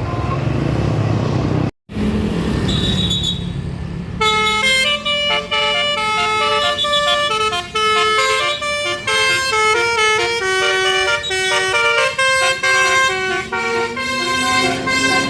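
A bus's telolet basuri melody horn playing a fast tune of short notes, starting about four seconds in after a few seconds of engine and traffic rumble. Near the end a slow siren-like glide rises beneath the tune.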